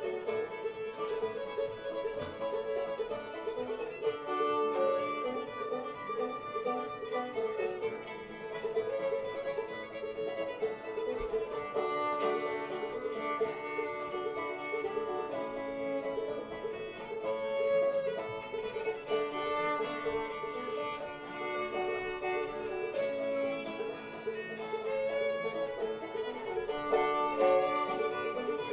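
Old-time string band playing a fiddle tune live: the fiddle leads with a held drone note under the melody, with banjo playing along.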